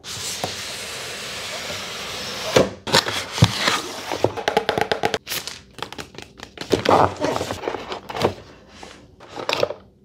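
Cardboard packaging and paper being handled. A steady sliding rustle lasts the first couple of seconds as the box is opened. Then comes a run of knocks, taps and paper crinkles as the inner tray and instruction leaflets are taken out.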